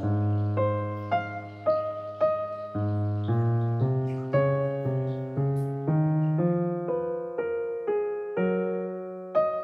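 Background music: a piano-like keyboard playing a slow, gentle melody, one note struck about every half second, each fading before the next.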